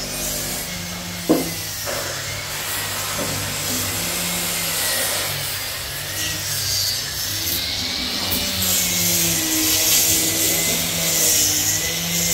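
Corded power tool running against the wood of a loudspeaker cabinet, a steady whine with rubbing noise as the surface is worked, and a sharp knock about a second in.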